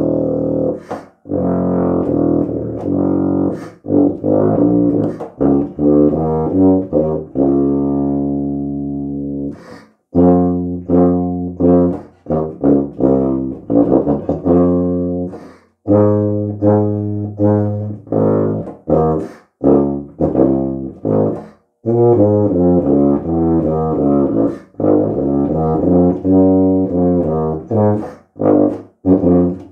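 Solo tuba playing a low-register etude unaccompanied: phrases of separate low notes, broken by short breaths, with one long held note about eight seconds in that fades away.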